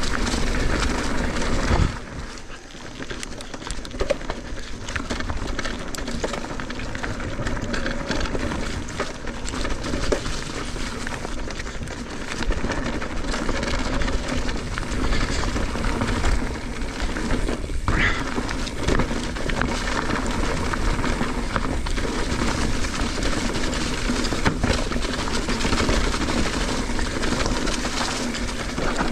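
Mountain bike descending a dirt flow trail, heard from a rider-mounted camera: steady wind on the microphone mixed with tyre and trail noise. A single short knock comes about 18 seconds in.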